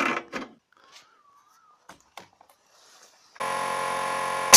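Electric air compressor running with a steady buzzing hum that starts abruptly about three-quarters of the way in, giving way to a burst of hissing air at the very end.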